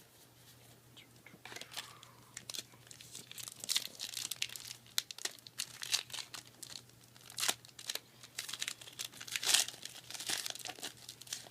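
Foil wrapper of a Yu-Gi-Oh booster pack crinkling and tearing as the pack is opened, in a run of crackles from about a second and a half in until near the end.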